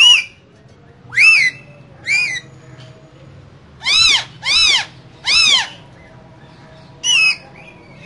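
Green ringneck-type parakeets giving loud, harsh screeching calls: seven short calls, each rising and falling in pitch. Three come close together in the middle.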